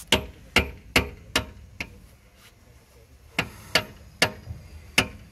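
A hammer striking metal: about nine sharp knocks, two or three a second, with a pause of about a second and a half midway.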